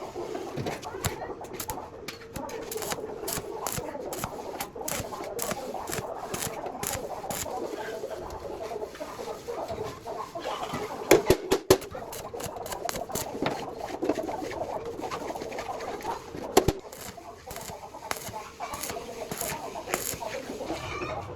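Chickens clucking, over frequent light clicking and tapping, with three loud sharp knocks close together about halfway through and another a few seconds later.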